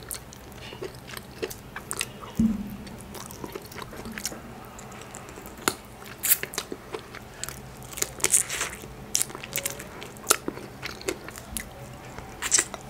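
Close-miked eating sounds: wet chewing and lip smacks while picking boiled crab in Cajun sauce and sucking sauce off the fingers, with scattered small clicks at irregular moments.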